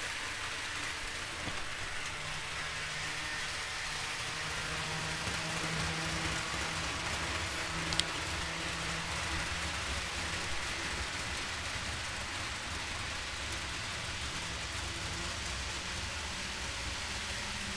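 Model trains running on a layout: a steady rolling hiss with a faint low hum, and one sharp click about eight seconds in.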